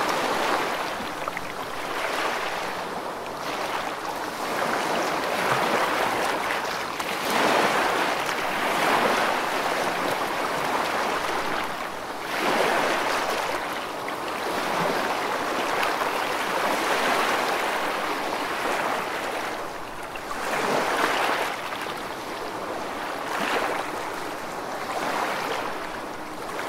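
Sea surf washing in at an estuary, a rushing noise that surges and eases every two to three seconds.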